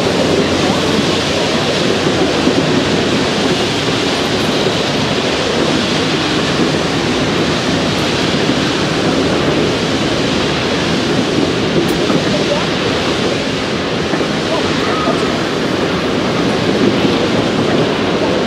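Passenger coaches' steel wheels rolling on the rails as the train passes close by: a steady, loud rushing noise of wheel and rail.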